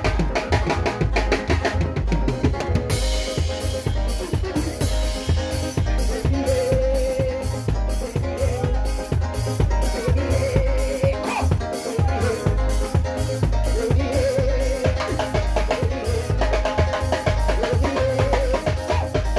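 Live band playing: an electronic keyboard over a drum kit with a heavy bass and a steady beat. Sharp cymbal strokes on the beat come in about three seconds in.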